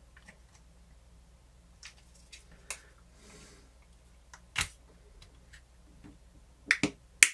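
Plastic pry tool working around the seam of an Ecobee smart sensor's snap-together plastic housing. Scattered small plastic clicks, then a quick run of sharper snaps near the end as the snap latches let go.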